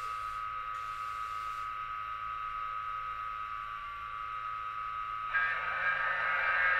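Model train standing with a steady hum made up of several high tones, then about five seconds in a rushing noise that comes in and grows louder as it starts to roll along the track.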